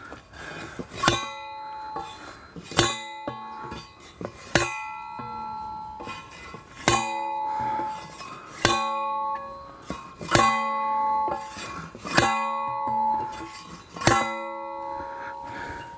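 Hand-held steel post driver slammed down onto a wooden fence post about eight times, roughly every two seconds. Each blow is a sharp clang followed by a bell-like ring that fades over about a second.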